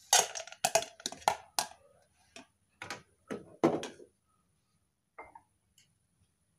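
A plastic ladle and a metal saucepan knocking and clattering against each other on a gas stove: a quick run of about eight sharp knocks over the first four seconds, then one more a second later.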